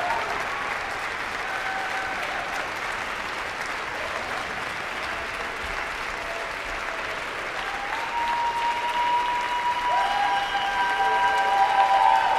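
Concert hall audience applauding steadily, growing louder in the last few seconds, with a few long held calls rising over the clapping.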